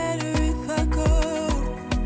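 Background pop song: a singing voice over a steady beat of deep bass-drum hits.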